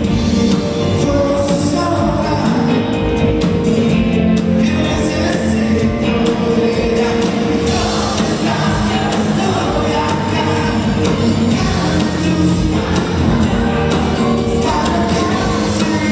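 Live rock band playing a song, with a man singing over electric guitar, drums and keyboards.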